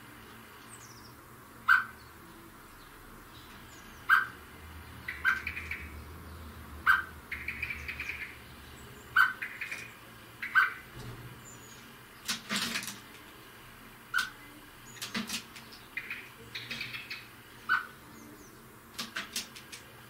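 Birds chirping in short bursts, with sharp clicks every two seconds or so.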